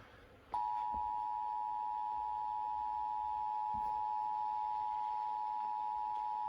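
Emergency Alert System two-tone attention signal (853 Hz and 960 Hz sounded together) from a broadcast station's required monthly test, starting abruptly about half a second in and holding steady.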